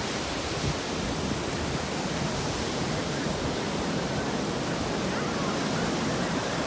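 Sea surf breaking and washing over a flat sandy beach: a steady, even rush of water noise.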